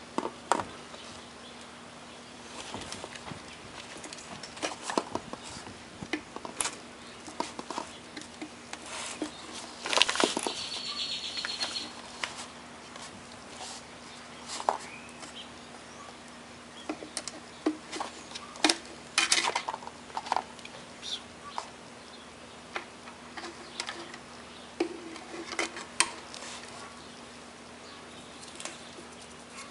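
Irregular clicks, taps and short clattery rustles of small parts and tools being handled during work on a string trimmer, over a faint steady hum.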